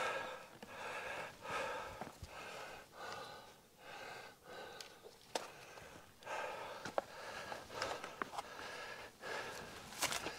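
Heavy, quick breathing of a hiker close to the microphone, puffs in and out a little under a second apart, with a few sharp clicks and scrapes from pushing through dry desert brush in the second half.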